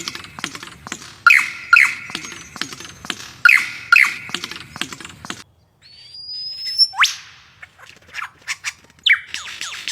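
Male lyrebird in courtship song: rapid dry clicks with pairs of loud whistled notes. After a short break, a rising whistle, a steep sweeping note and more clicks.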